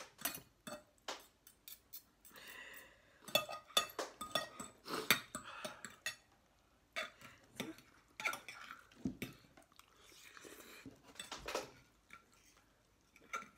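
Cutlery clicking and scraping against dishes while eating spicy instant noodles, in quick irregular clinks.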